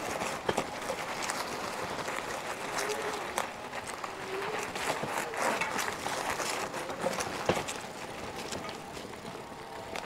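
Loaded bicycle ridden through soft, deep sand: the tyres grind and sink into the sand, with scattered clicks and rattles from the bike and a couple of sharper knocks.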